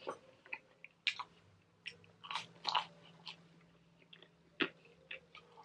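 Close-up mouth sounds of a person chewing a bite of a ranch-dipped garlic knot: scattered soft wet smacks and clicks.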